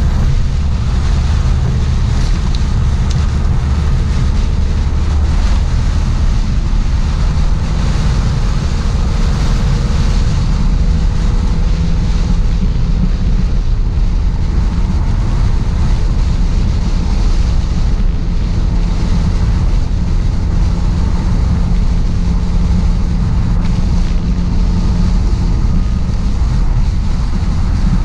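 Rainstorm: a steady, loud rushing with a deep rumble, and wind buffeting the microphone.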